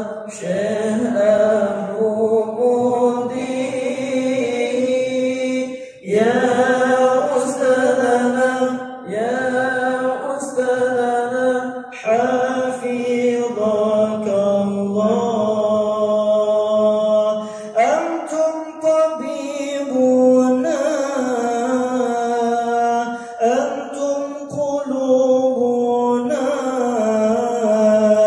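Syair, an Islamic devotional poem, chanted by a voice in long melodic phrases, each about six seconds, with short breaths between them.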